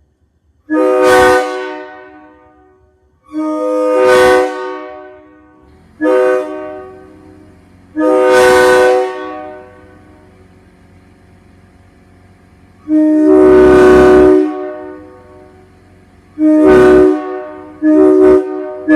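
Multi-chime locomotive air horn sounded in a series of blasts of varying length, each a steady chord that rings off in echo. There is a longer blast about two-thirds of the way through, then quick short toots near the end.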